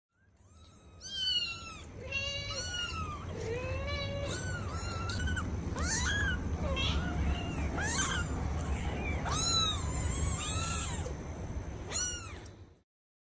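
Kittens mewing over and over: many short, high-pitched calls that rise and fall, with a couple of lower, longer calls among them and a steady low rumble underneath.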